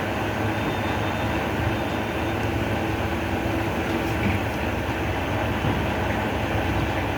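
Steady, unbroken mechanical rumble with a faint low hum: a constant background noise.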